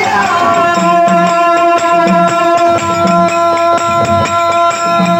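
Dollina pada folk music: one long held note, sinking slightly in pitch, over a steady beat of low drum strokes and quick ticks.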